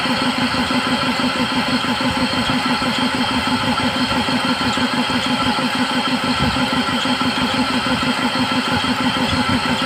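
Old belt-driven piston air compressor running steadily with a fast, even pulsing and a strong low hum, pumping up its air tank.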